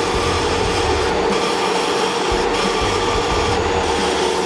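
Laser engraving machine running as it burns lettering into end-grain hardwood: a steady fan-like hiss and hum with a constant mid-pitched tone, the hiss thinning briefly about once a second.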